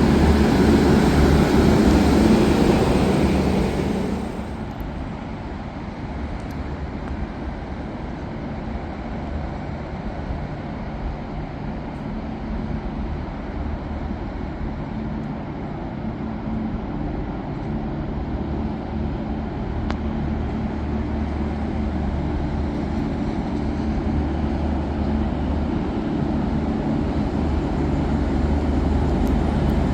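A train's engine running steadily as a low hum, with a louder rushing noise over the first four seconds that then falls away; the hum grows slowly louder toward the end.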